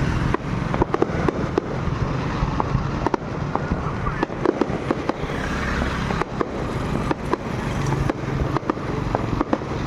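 A fireworks display with many sharp bangs and crackles, several a second at irregular intervals, over a continuous low rumble.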